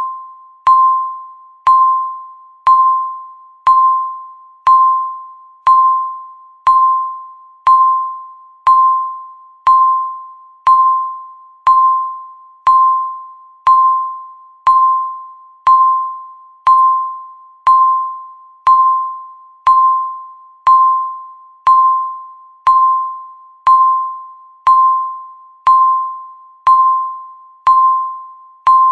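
Countdown timer beeping once a second: a single clear electronic tone, struck sharply and fading away before the next, like a small bell.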